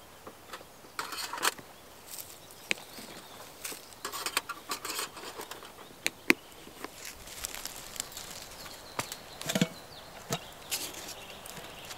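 Irregular clicks, knocks and rustles of camping gear being handled and packed by hand, with dry fallen leaves rustling underneath.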